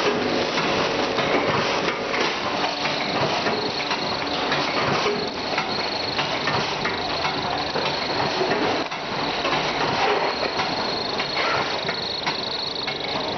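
Continuous creaking with a dense run of small clicks and rattles, even in level.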